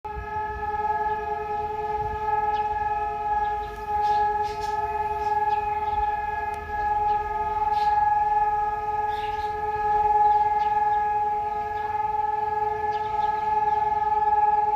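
Israeli civil-defence sirens sounding the long memorial siren: one steady, unbroken wail with several tones sounding together, neither rising nor falling.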